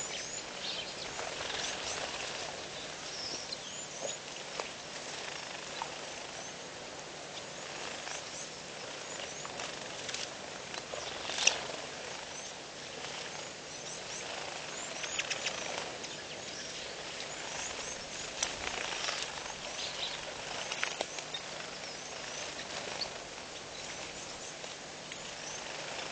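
Outdoor bush ambience: a steady hiss with many small birds chirping in short scattered calls, and one sharp click about eleven seconds in.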